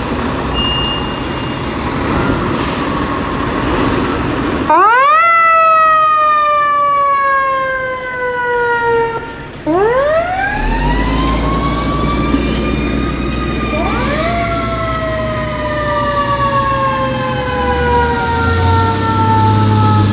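Fire truck siren starting about five seconds in and wailing in repeated sweeps, each rising sharply and then falling slowly, over the low rumble of the fire trucks' engines.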